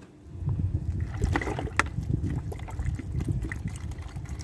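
Water glugging out of a plastic bottle as it is poured into a plastic bowl, starting about half a second in, with a couple of sharp clicks along the way.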